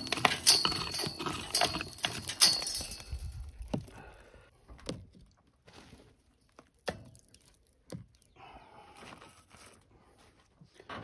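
A small hand tool scraping and raking dry earth out from between the stones of a granite wall, with grit and dirt trickling down. The scraping is dense for the first few seconds, then thins to a few single knocks and scrapes spaced well apart.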